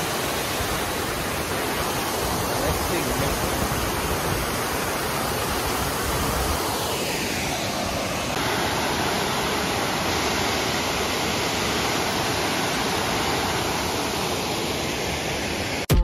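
Steady rushing water of a broad multi-tiered waterfall running full and muddy after a night of rain, a dense even noise with no breaks. Its character shifts slightly about eight seconds in.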